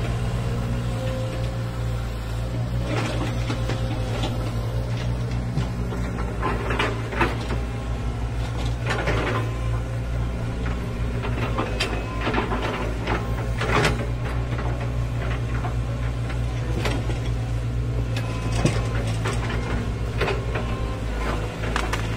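Excavator diesel engine running steadily with a low, pulsing hum, with occasional short knocks and clanks from the machine.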